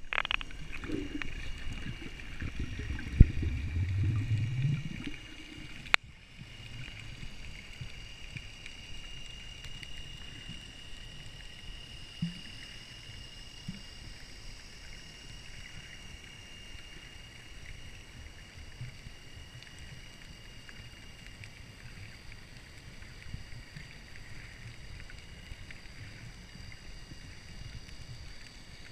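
Underwater ambience picked up by a submerged camera: muffled sloshing and knocks for the first five seconds, a sharp click about six seconds in, then a steady faint hiss with a thin high whine and an occasional small knock.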